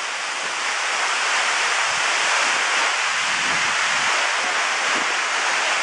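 Waterfall rushing in a steady, even hiss that grows louder over the first couple of seconds, then holds.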